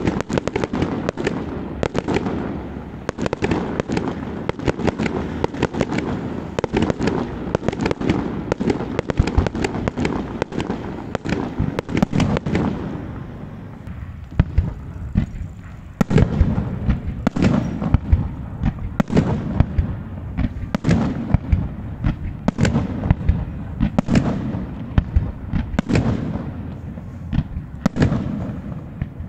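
Fireworks display: a dense run of bangs and crackling shell bursts, thinning out for a few seconds near the middle, then picking up again as a fast volley of loud separate bangs.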